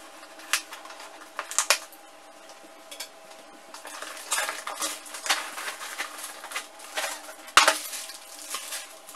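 A cardboard box being cut open by hand, with a few sharp clicks in the first two seconds, then cardboard and plastic wrap rustling as a stainless steel rack is slid out of the box, with one sharp metal knock about three-quarters of the way through.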